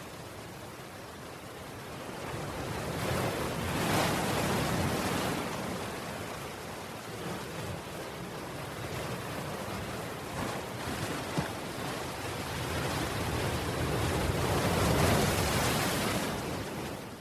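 Ocean surf: waves breaking and washing over a seawall, a steady rush of noise that swells louder about four seconds in and again near the end.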